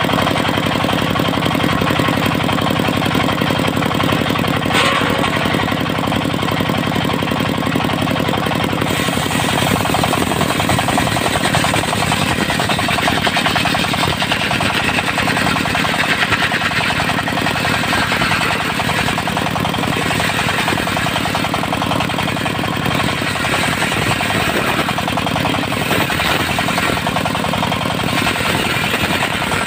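Diesel engine of a portable circular sawmill running hard with a fast, knocking beat while the disc saw cuts dry teak. The sound gets brighter and harsher about nine seconds in.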